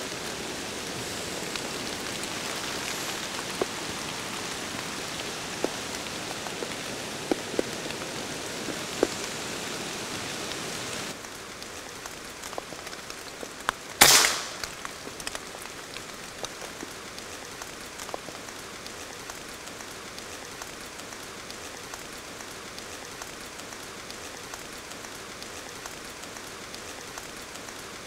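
Steady rain with scattered drips, turning quieter about eleven seconds in; about halfway through, one sharp shot from an Air Arms S510 air rifle in .25.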